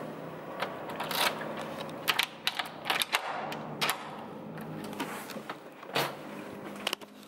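Metal key clicking and scraping in a hotel room door lock, a string of sharp clicks, followed by the latch and handle as the door swings open near the end.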